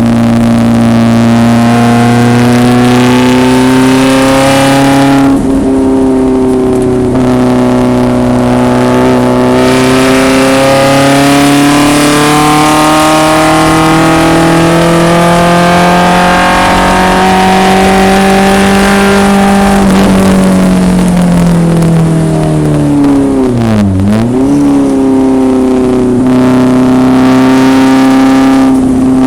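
1974 BMW 2002 racecar's four-cylinder engine at racing speed, with a gear change about five seconds in and a long climb in revs. About three-quarters of the way through the revs fall and dip sharply for a moment, as in braking and a downshift, then it pulls again.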